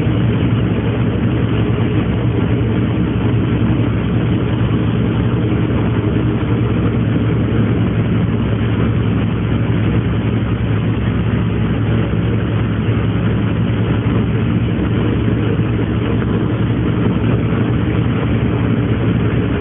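Ferry's engine running steadily: an even, low droning hum with a wash of noise over it, unchanged throughout.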